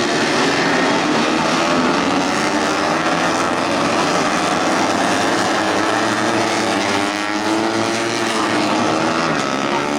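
Several tuned four-stroke 150cc underbone race motorcycles running together, their engines rising and falling in pitch as they rev.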